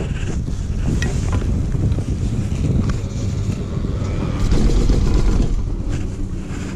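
Wind rumbling on the microphone, mixed with rubbing and a few light knocks as the camera is pressed against a ski jacket's fabric. The rumble is loudest about four and a half seconds in, then eases.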